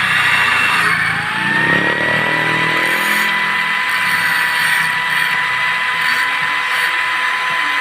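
Electric angle grinder's motor spinning up about a second in, its rising whine levelling off and then running at a steady high pitch.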